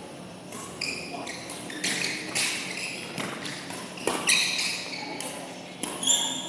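Badminton rally: sneakers squeaking on the court floor and racket strikes on the shuttlecock, with a sharp hit about four seconds in and another near the end.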